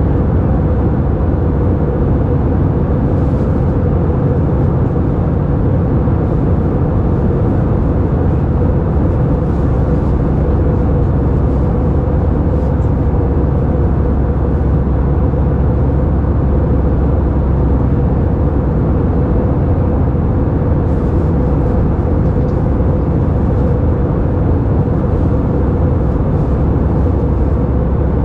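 Steady cabin noise of an Airbus A320-232 in cruise: an even rush of airflow and engine noise heard from inside the passenger cabin, with a faint steady tone in the middle.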